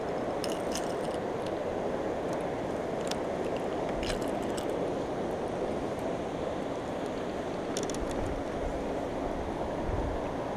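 Steady rushing of a flooded, fast-running river, an even roar with no rhythm. A few light clicks sound over it near the start, around the middle and near the end.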